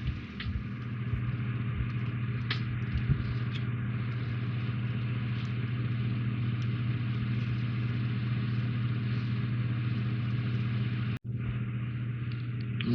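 A steady low electrical hum, with a few faint light clicks in the first three seconds as small plastic model parts are handled. The hum cuts out for an instant about eleven seconds in.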